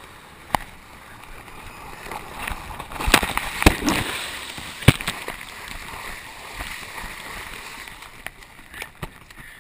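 Muddy water splashing and sloshing around a chest-mounted camera as the runner plunges into a mud pit and wades through it. It is loudest from about three seconds in, with several sharp knocks, and eases off near the end.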